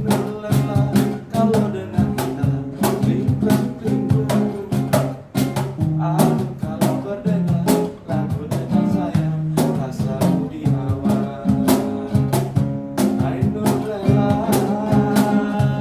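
Acoustic guitar strumming chords over a steady cajon beat, with regular sharp hand strikes on the box.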